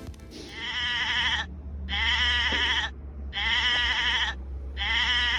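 A recorded bleating farm-animal call, played four times in a row with the same wavering pitch each time, about a second per call with short gaps, as from a sound book's animal button.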